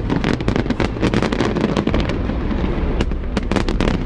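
Fireworks display going off in rapid succession: a dense run of overlapping bangs and crackles over a steady low rumble.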